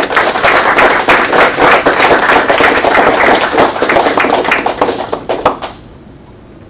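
Audience applauding: dense clapping for about six seconds, dying away near the end.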